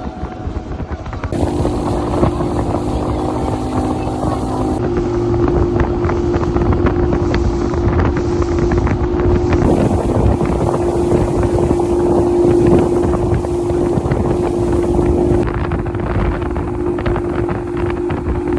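Boat engine running steadily at speed, a steady droning note, with wind buffeting the microphone; it gets louder about a second in.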